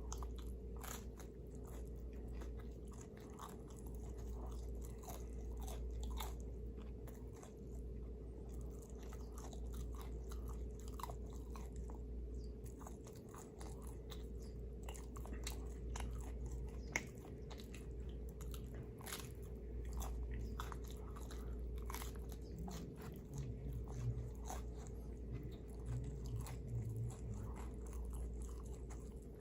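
A person chewing pizza close to the microphone: crunching and many wet mouth clicks, over a steady low hum.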